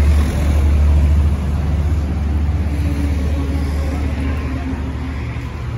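Mazda Titan truck's WL four-cylinder diesel engine idling, a steady low drone that eases slightly about a second and a half in.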